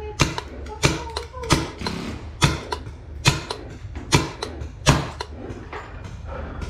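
Paintball marker firing a steady run of sharp pops, about eight of them, a little under a second apart.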